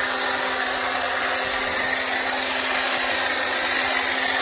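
Pressure washer running steadily with a foam cannon spraying: a constant motor-and-pump tone under the loud hiss of foam jetting onto the car's panels.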